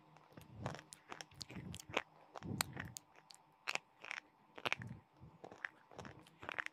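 Close-miked biting and chewing of a brittle white chalk-like stick: a string of sharp, irregular crunches with softer grinding between them.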